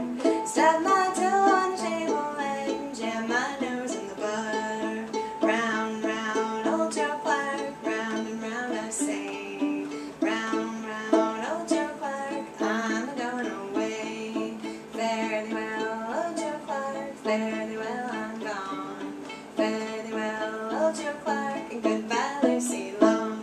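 A woman singing a folk song while plucking chords pizzicato on a violin held like a guitar. The plucked notes keep up a steady rhythm under the voice.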